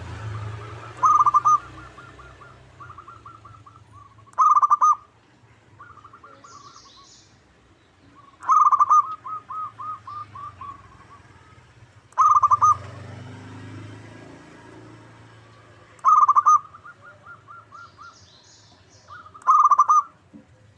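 Zebra dove (perkutut) cooing: a loud phrase about every three to four seconds, each a strong opening note followed by a quick run of short staccato notes, with softer coo phrases in between.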